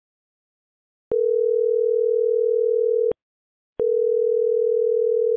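Telephone ringback tone on a call being placed: a steady tone held about two seconds, starting about a second in, then a second ring after a short pause.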